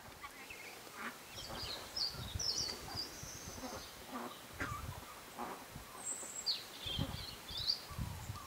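Small birds chirping and twittering in short, gliding phrases, with irregular low thumps underneath.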